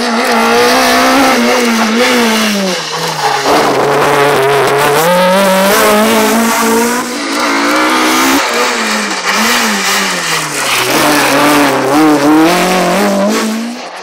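Rally car engine revving hard on a closed special stage. The engine note climbs, drops and climbs again several times as the driver works through the gears and lifts for corners. It cuts off suddenly at the end.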